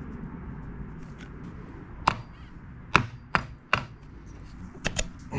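Hammer tapping on the propeller of a Mercury 3.5 hp four-stroke outboard to knock it loose from the prop shaft and get at a suspected broken shear pin: a series of sharp knocks, irregularly spaced, starting about two seconds in.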